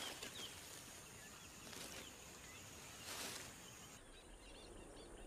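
Quiet wild-wetland ambience: a faint steady hiss with scattered high bird chirps and a couple of short rustles. About four seconds in the background changes and the small chirps become denser.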